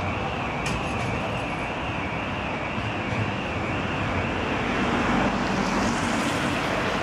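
Bombardier CR4000 tram approaching on street track, its running noise growing louder in the last few seconds amid steady street noise. A high wavering tone sounds through the first half.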